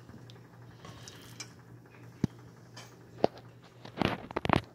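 Light handling knocks and clicks: two single sharp clicks, then a quick cluster of louder knocks and taps near the end, over a faint steady hum.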